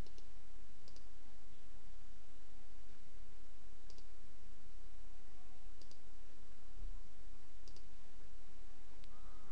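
Computer mouse clicking, about five faint clicks spaced roughly two seconds apart, over a steady low hum.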